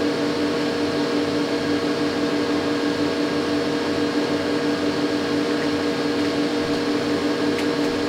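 Compaq ProLiant 3000 server running, its cooling fans giving a steady whir with a constant hum under it.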